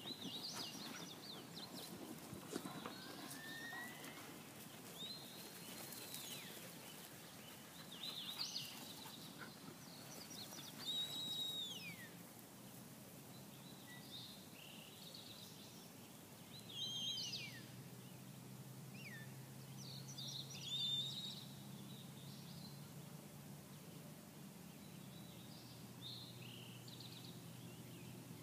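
A songbird singing faintly in short phrases of high, arching and falling notes, repeated every few seconds. A low steady hum comes in about halfway.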